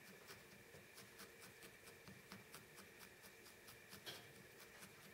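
Faint, rapid, even ticking, about five a second, of a barbed felting needle stabbing light grey wool onto a needle-felted raccoon's nose, with one slightly louder click about four seconds in.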